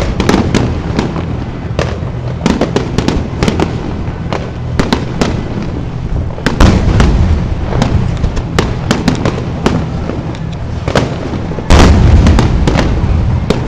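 Aerial fireworks shells bursting in quick succession: many sharp cracks and pops over a continuous low rumble, with heavy booms about halfway through and again near the end.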